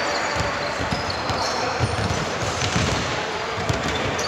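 Basketball bouncing on a court floor during play: repeated dull thuds, with brief high squeaks over them.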